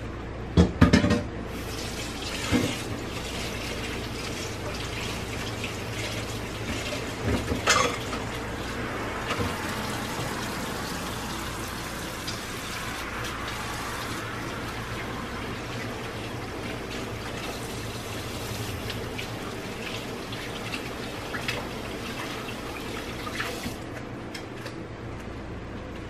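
Kitchen tap running into the sink while hands are washed under it; the water comes on about a second and a half in and is turned off shortly before the end. A few sharp knocks near the start, the loudest just before the water comes on.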